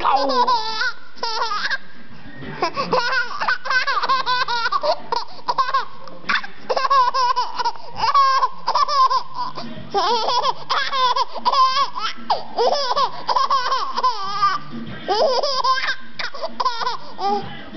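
Baby laughing hard in repeated high-pitched bursts, with short breaks between them.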